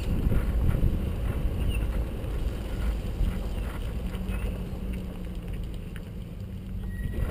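Vehicle towing an empty boat trailer slowly over asphalt: a steady low rumble of road noise and wind on the microphone, with a few light clicks, easing off as the rig slows to a stop.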